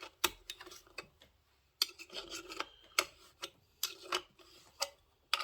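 Small metal parts being handled and fitted on a chainsaw's muffler: scattered light clicks and short scraping sounds of metal against metal as bolts and the muffler are set in place by hand.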